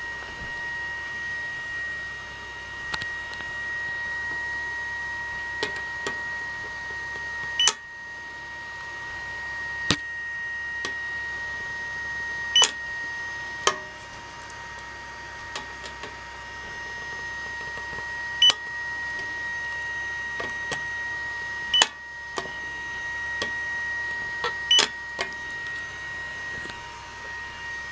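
Handheld spot welder firing about half a dozen sharp snaps, a few seconds apart at irregular intervals, as it tacks a model jet engine's exhaust pipe back together. A steady high-pitched tone sounds throughout.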